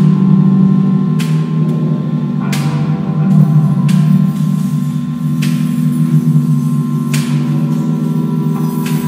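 Experimental sound performance: a steady low electronic drone with a held high tone, over which something hard, likely metal, is struck every second or two, each strike ringing out.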